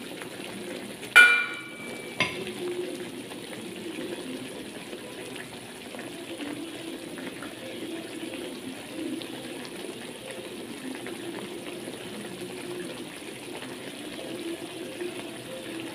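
Blended onion and tomato paste frying in oil in a steel wok, a low steady sizzle. About a second in, a loud ringing metal clang, and a lighter knock a second later.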